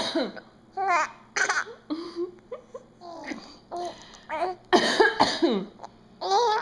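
A woman coughing in short bursts, about twice, with an infant's brief squeals and babbling in between.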